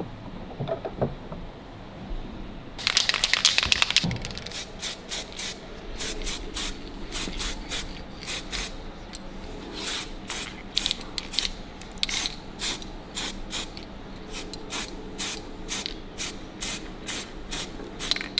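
Aerosol spray-paint can hissing as it coats a speedometer housing in black: one longer burst about three seconds in, then a long run of short bursts, about two a second.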